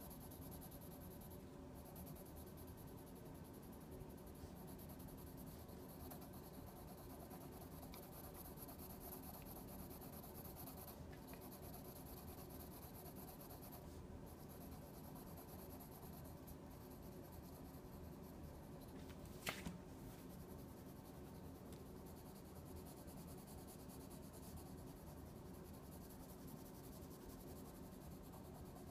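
Graphite pencil shading on paper: a faint, continuous scratching of hatching strokes. One sharp click about two-thirds of the way through.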